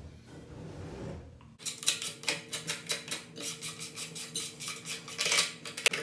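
Quick run of small hard plastic clicks and rattles, about five a second, starting under two seconds in, from the parts of a toilet dual-flush push-button kit being handled, over a faint steady hum.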